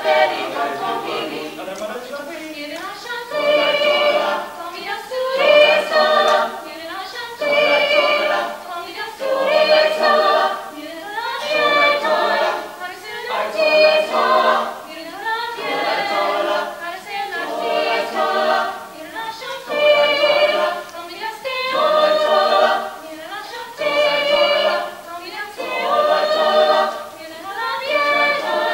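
Small mixed choir of young male and female voices singing a cappella, in rhythmic phrases that swell and fall back about every two seconds.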